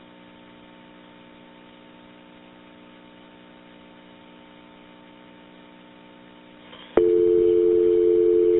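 Open telephone line with a faint steady hum, then a loud steady dial tone cuts in about seven seconds in.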